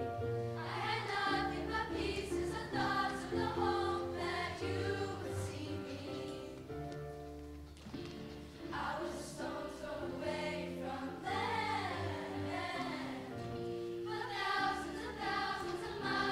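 Middle school show choir singing in parts over live instrumental accompaniment with a steady bass line. The singing drops away briefly about eight seconds in, then comes back.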